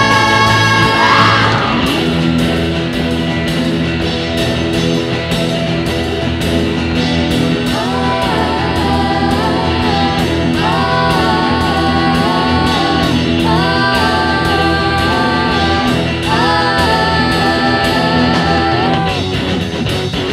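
Neo-psychedelic rock song with electric guitar and a steady drum beat. A sung vocal line comes in about eight seconds in, in repeated held phrases.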